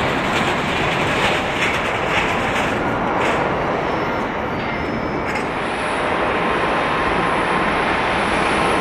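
Jet airliner engines running, a steady broad roar. A thin steady whine joins in about halfway through.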